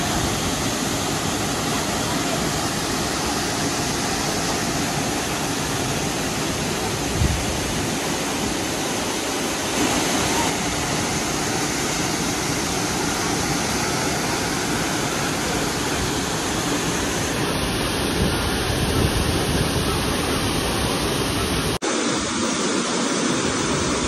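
Steady rushing roar of a waterfall plunging into a rock pool. About 22 s in, the sound cuts abruptly to a closer, thinner rush of shallow water running between boulders.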